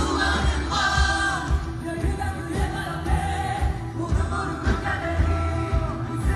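Live worship music played through the hall's sound system: a singer leads a melody over a band with a steady, heavy low beat.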